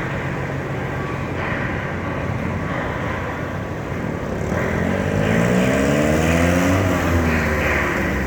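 Suzuki APV van's swapped-in Toyota Corolla engine running, revving up from about halfway through and easing off a little near the end.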